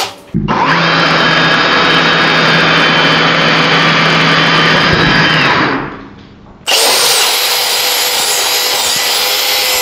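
Cordless hammer drills in drilling mode boring half-inch holes into a wooden 4x4, the motors running steadily under load as the bits chew through the wood. One run stops about six seconds in, and another drill keeps running from just before seven seconds.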